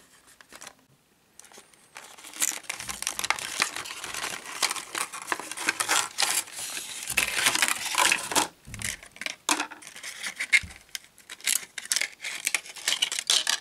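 Toy-car packaging crinkling and rustling as it is handled, with many small crackles and clicks. It starts about two seconds in, after a short near-silent pause.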